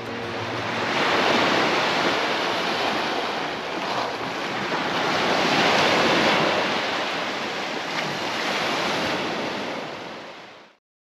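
Sea waves breaking and washing up a beach, the surf swelling and easing in slow surges, then fading out near the end.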